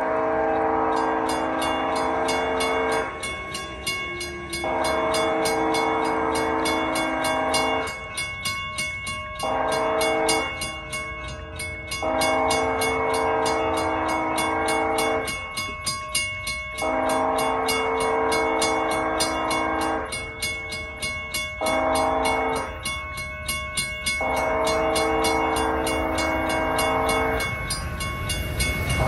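Approaching Amtrak California passenger train's multi-chime horn blowing the grade-crossing signal: long, long, short, long, then the pattern again. Under it runs the train's rumble, growing louder near the end as the train draws close.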